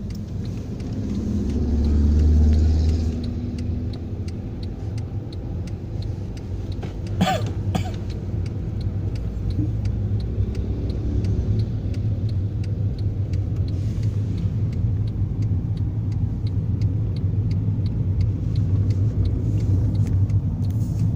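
Car engine of a homemade 'bulldog' vehicle running as it is driven, a steady low rumble that swells briefly about two seconds in, with a faint regular ticking over it.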